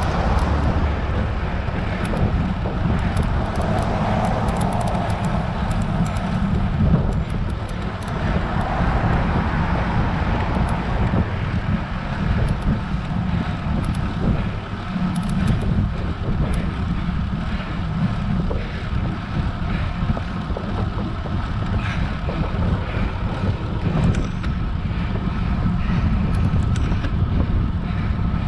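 Wind rumbling steadily on a GoPro's microphone as a road bike rides up a hill, mixed with road and traffic noise.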